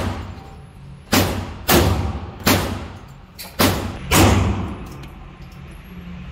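Gunshots ringing in an indoor shooting range: five loud shots, irregularly spaced over about three seconds starting a second in.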